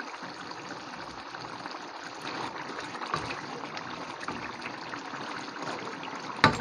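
Thick coconut-milk sauce of pork Bicol Express bubbling and sizzling steadily in a wok as it reduces down toward oil, a sign the dish is nearly cooked. A sharp knock near the end.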